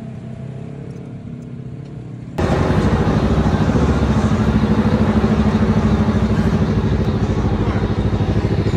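Quiet background music for the first couple of seconds, then a sudden cut to a side-by-side UTV's engine running loud and steady at an even pitch, with a fast rhythmic pulse.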